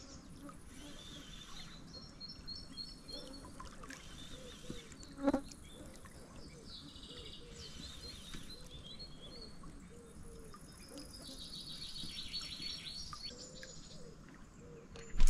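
Songbirds calling from the riverside trees in short repeated chirping phrases over a quiet background, with a single knock about five seconds in.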